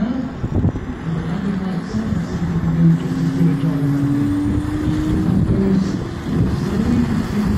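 Large radio-controlled four-engined Avro Lancaster scale model flying a low pass, its engines droning with a warbling beat, and a thin tone rising slightly in pitch in the middle of the pass.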